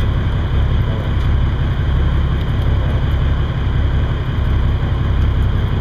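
Prawn beam trawler's engine running steadily, a low, even rumble.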